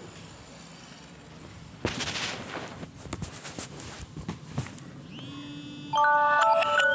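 Irregular clicks and rustling, then about five seconds in a soft rising swell leads into the Samsung Galaxy Tab A7 Lite alarm: a loud, bell-like mallet melody of quick stepping notes.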